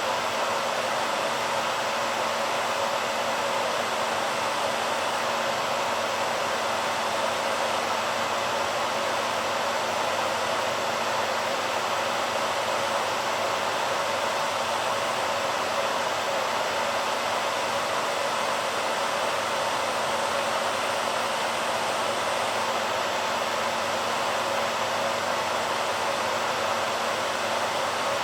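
BaByliss hairdryer running steadily: an even rush of blown air with a faint steady hum beneath it.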